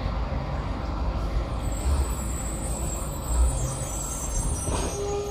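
Steady city traffic noise: a low rumble with an even hiss over it.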